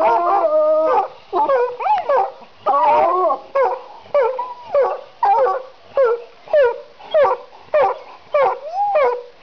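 American Foxhounds howling together for about a second, then a steady run of short yelping calls that fall in pitch, about two a second.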